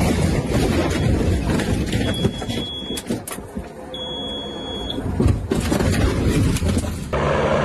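Aircraft engine noise mixed with rushing noise on the microphone, with two high steady beeps of about a second each in the middle. Near the end the sound cuts abruptly to a different, steadier engine drone.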